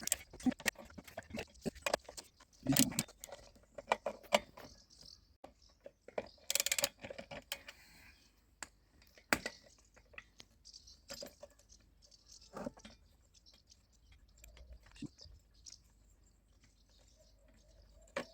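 Scattered metallic clicks and clinks of hand tools and small metal parts, with a few louder knocks and short scrapes, while the starter ratchet of a petrol trimmer's engine is being worked loose.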